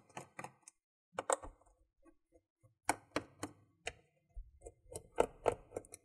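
Irregular light clicks and taps of fingers working loose the adhesive-backed rubber foot strip on a laptop's bottom case, with a quick run of clicks about three seconds in and again near the end.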